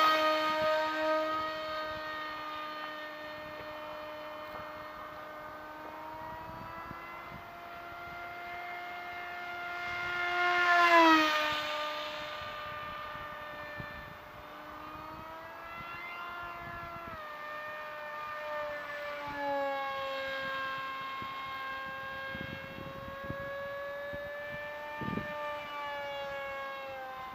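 Electric RC plane's brushless outboard motor (Turnigy Aerodrive 28-26, 2200Kv, 6x4 prop) whining overhead, its pitch shifting up and down as it flies. About eleven seconds in it grows loud, and the pitch drops sharply as it passes close by.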